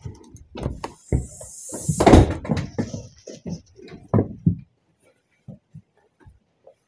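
A door opening, with a run of knocks and thumps and a brief noisy rush about two seconds in. After about four and a half seconds only a few faint taps remain.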